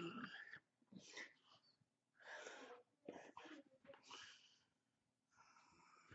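A man's breathy, whispered vocal sounds: several short puffs of breath roughly a second apart, then a brief silence near the end.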